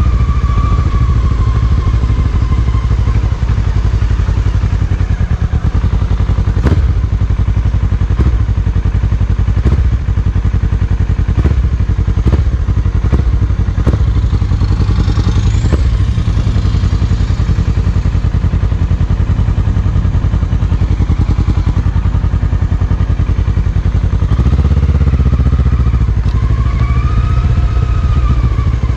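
Motorcycle running on the move, with a heavy steady low rumble throughout. A string of sharp knocks comes in the middle.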